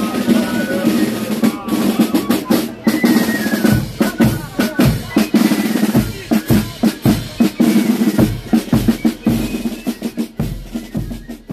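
Marching band drums playing: rapid snare drum beats and rolls, joined about four seconds in by steady deep bass drum strokes.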